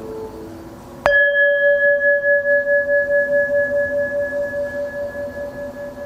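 A Buddhist bowl bell struck once about a second in, ringing with a slow pulsing waver as it fades. The last of a piano tune dies away just before the strike.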